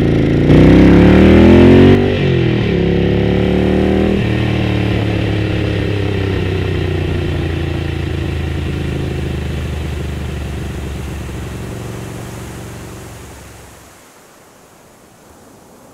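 1974 Ducati 750 SS's air-cooled 90-degree V-twin accelerating hard, its pitch climbing and dropping twice as it shifts up through the gears. It then runs on steadily and fades away over the next ten seconds.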